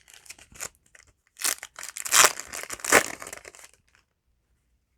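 Foil wrapper of a Yu-Gi-Oh! booster pack crinkling and tearing as it is ripped open, after a few light handling clicks. The crinkling stops suddenly about four seconds in.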